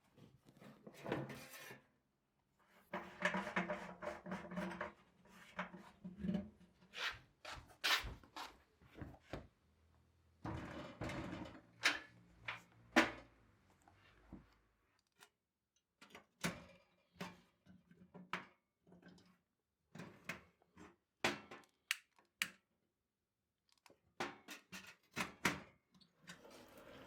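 Irregular knocks, clicks and clatter of kitchen things being handled and set down, with a few short stretches of scraping or rustling between them.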